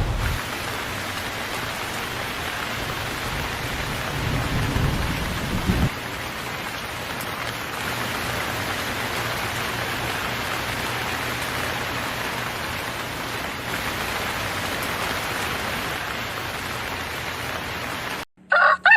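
Steady rain falling, with a low roll of thunder about four to six seconds in. Near the end the rain cuts off suddenly and a rooster starts to crow.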